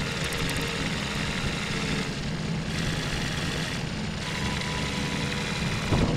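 Engine idling steadily, a continuous low rumble with no change in speed.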